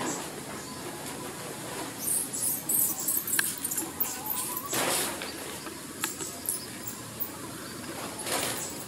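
Baby long-tailed macaque squeaking in high, thin bursts about two to three seconds in, then giving two short, harsher cries; the distress sounds of an infant being refused milk during weaning.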